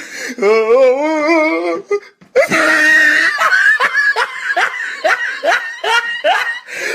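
Laughter meme sound clip: a long, wavering laugh, a brief break about two seconds in, then a run of short rhythmic laughs about three a second.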